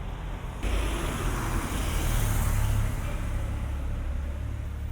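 A car passing by: road and engine noise swells suddenly about half a second in, peaks around two to three seconds, then fades back to a low traffic rumble.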